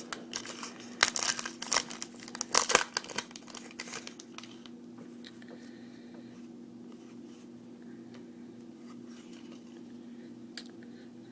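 Crinkly foil wrapper of a trading-card pack being torn and crumpled for the first few seconds, then a steady low hum with a few faint taps from handling the cards.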